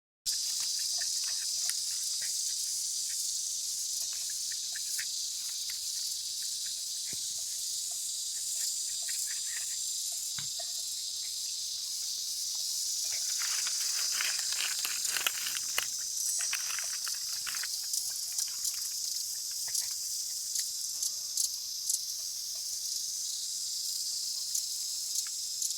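Cicadas buzzing in a steady, unbroken high-pitched drone, with scattered short clicks and ticks over it through the second half.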